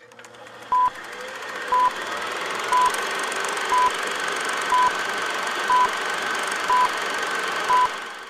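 Film-leader countdown sound effect: a short beep once a second, eight in all, over the steady whir and clatter of a film projector that swells in at the start and fades near the end.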